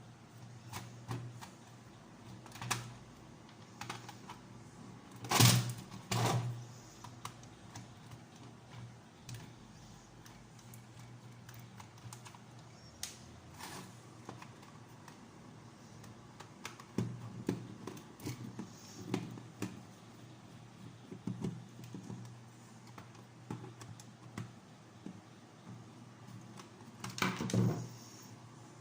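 Small plastic clicks and knocks from a toy horse-race game's plastic case and parts being handled, with a cluster of louder knocks about five to six seconds in and again near the end, over a low steady hum.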